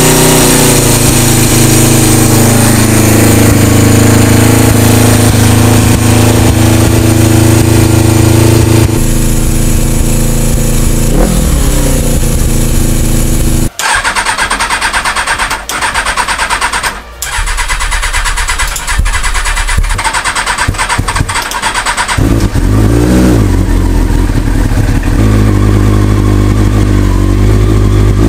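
Cold motorcycle engines: the Suzuki GS500F's carbureted twin runs steadily on full choke. After a sharp break about halfway, the Kawasaki ZZR600's carbureted inline-four is cranked on the electric starter for several seconds, then catches with a rise in revs and settles into running.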